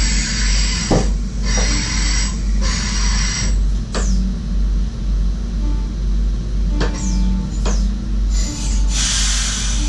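Running noise inside the cab of a moving SGM Sprinter electric multiple unit: a steady low rumble with a sharp click over the rails now and then, and hiss that swells briefly a few times.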